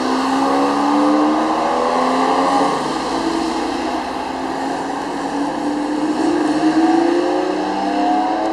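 Sports car engine accelerating hard on a race track. Its pitch climbs steadily, drops at a gear change about three seconds in, then climbs again.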